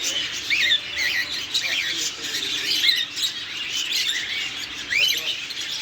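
Many caged pet birds chirping and calling at once, a dense overlapping chatter of short rising and falling chirps.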